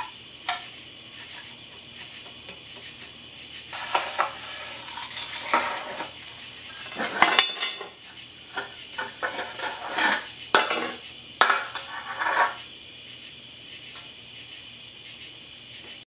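A metal rod scraping and poking powdery burnt-brass residue in a metal muffin tin, with scattered clinks and knocks as the tin is handled. The clatter comes in irregular bursts over a thin, steady high-pitched whine.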